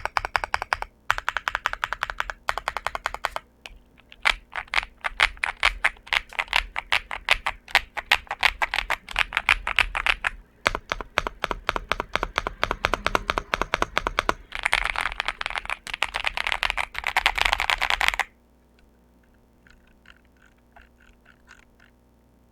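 Typing on a Xinmeng M75 Pro mechanical keyboard with Dark Plum switches: bursts of rapid keystrokes with brief pauses, building to a fast unbroken flurry that stops sharply about 18 seconds in, followed by a few faint clicks.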